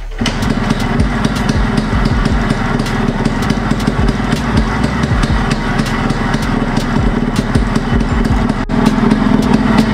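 Yamaha RX100's single-cylinder two-stroke engine idling steadily with a fast, even firing beat. It idles properly on a newly fitted aftermarket Allied CDI ignition.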